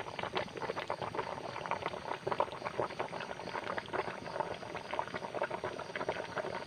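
Thick coconut milk boiling hard in a large pot around pinangat taro-leaf bundles: a dense, fast crackle of bubbling and popping.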